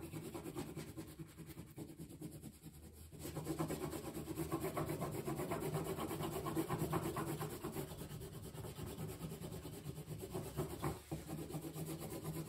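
Crayon colouring on paper: quick back-and-forth scribbling strokes rubbing on the sheet, louder from about three seconds in.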